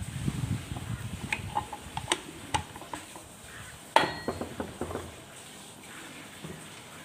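Metal clinking and knocking as the clutch housing of a Husqvarna brush cutter is fitted by hand onto the engine: several light clicks, then a sharper metallic clank about four seconds in that rings briefly.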